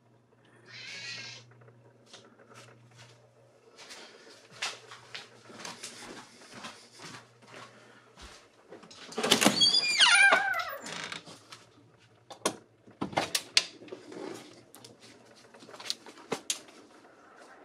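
A door being unlatched and opened, with scattered clicks and knocks. About nine seconds in there is a loud squeal, about a second long, that falls in pitch.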